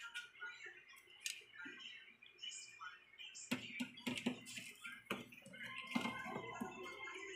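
Scattered clicks and knocks of LED TV backlight strips and a screwdriver being handled against the TV's metal back panel, picking up about three and a half seconds in.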